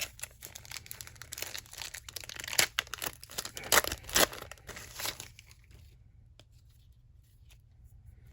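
Paper trading-card pack wrapper being torn open and crinkled, with several sharp rips in the middle of the stretch, then a few faint clicks as it quiets down.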